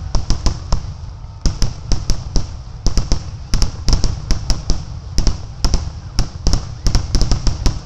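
Fireworks finale: rapid, overlapping booms and cracks of aerial shells bursting, several a second, over a continuous low rumble.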